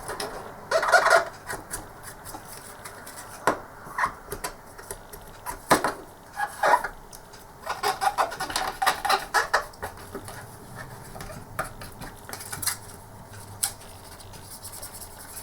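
Cotton bud scrubbing around the edges and seam of a plastic computer-mouse housing: a scratchy rubbing in short spells, with scattered light clicks and knocks from the plastic being handled.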